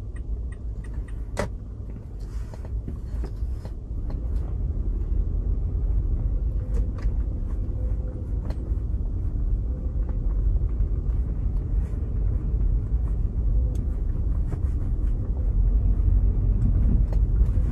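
Steady low rumble of a moving car's road and engine noise, growing louder toward the end, with a sharp click about a second and a half in.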